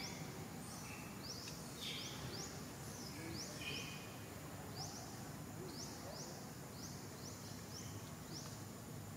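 Outdoor forest ambience: a short, high chirp that sweeps upward, repeated every half second or so, over a steady low background rumble.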